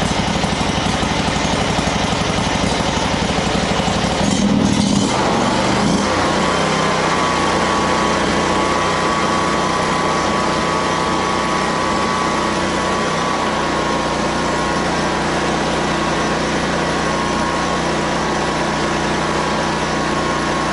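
Predator 670 V-twin engine running on a bench test. About four to six seconds in its speed changes, then it settles into a steady run with a thin whine over the engine note.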